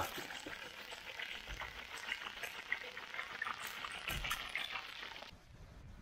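Trout frying in hot oil in a saç pan: a steady sizzle with scattered crackling pops, cutting off suddenly a little past five seconds in.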